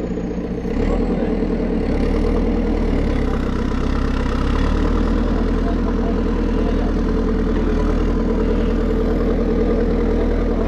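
JCB backhoe loader's diesel engine running steadily, growing a little louder about a second in.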